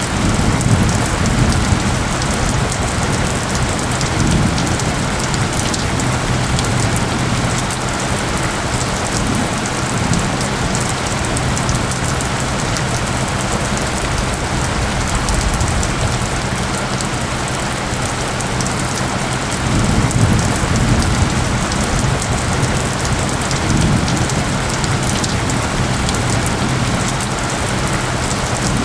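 Steady rain pattering on a surface, with low rumbling swells now and then, under a low steady tone from the isochronic-tone track.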